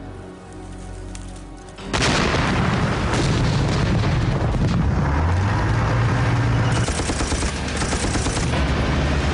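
Sustained low music, then about two seconds in a sudden loud battle soundscape: dense rapid gunfire and heavy booming explosions that keep going.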